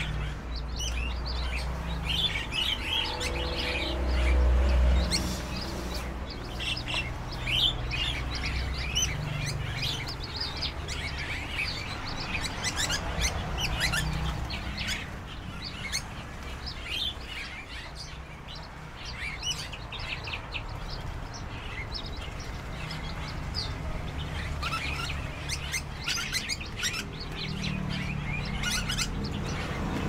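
Many small caged songbirds chirping and twittering together in a dense run of short, high calls. A low rumble swells briefly about four seconds in.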